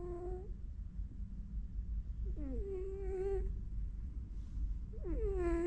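Domestic cat snoring in its sleep: a whistling, nasal tone on each breath that drops quickly in pitch and then holds for about a second, repeating about every two and a half seconds over a steady low rumble.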